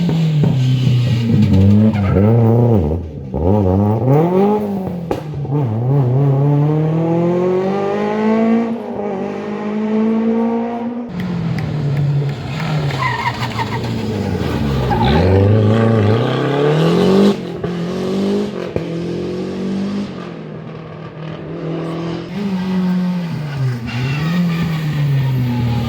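Historic rally cars at full effort on a stage, their engines revving hard with the pitch climbing and dropping again and again through gear changes and lifts. The sound changes abruptly about eleven seconds in and again after about seventeen seconds, as one car gives way to the next.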